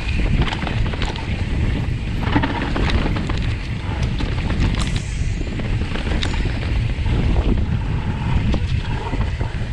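Mountain-bike ride noise on a fast singletrack descent: wind buffeting the camera microphone and tyres rolling over dirt and dry leaves, with the bike clicking and rattling over bumps.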